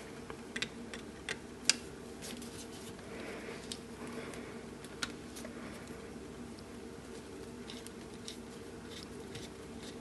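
Faint steady hum with scattered light clicks and taps of small tools and parts being handled; the sharpest click comes a little under two seconds in.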